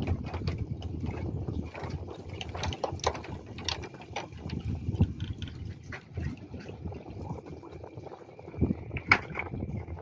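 Seawater lapping against the bamboo stilts of a fishing platform, with small irregular slaps and splashes over a low wash.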